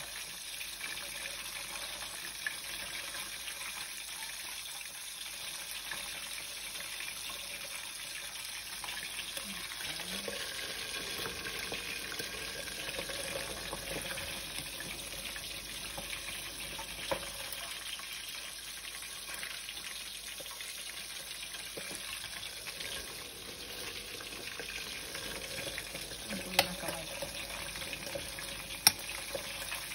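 Sliced bamboo shoots boiling in water in a large metal pot, a stage of boiling them twice: a steady bubbling hiss, with three sharp clicks, the loudest two near the end.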